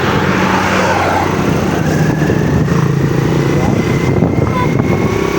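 Motor vehicle engine running steadily, with people's voices over it.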